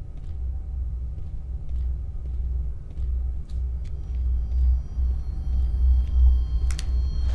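Deep, steady rumbling drone of horror-film sound design, swelling slightly, with faint soft ticks. From about four seconds in, thin, high, sustained tones join it.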